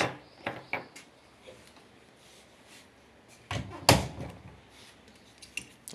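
A few light clicks, then one hard knock about four seconds in: tools and fittings being handled and set down.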